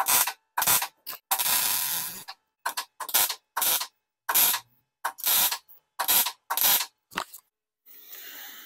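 MIG welder tack-welding stainless steel: about fifteen short bursts of arc crackle in quick succession, the longest lasting nearly a second, with short silences between them.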